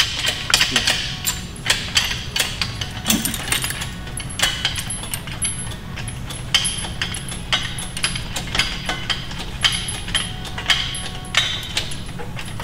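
Steel lifting chain clinking and rattling against itself and the gearbox as it is rigged around a transmission for a shop crane: irregular sharp metallic clinks, a few to several a second, over a steady low hum.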